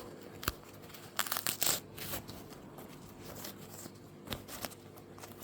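Handling noise as a stuck piece is worked off a 6-inch midrange speaker: scattered clicks and rustling, with a cluster of tearing, scraping sounds about a second and a half in.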